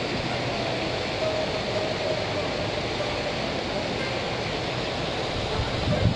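Steady rushing noise, with a faint held tone through the first few seconds and a low bump near the end.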